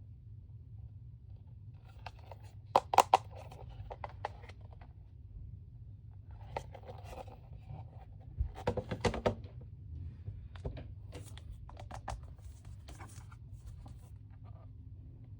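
Toy blind-box packaging being handled and opened by hand: bursts of sharp clicks, knocks and rustling, loudest about three seconds in and again around nine seconds, over a low steady hum.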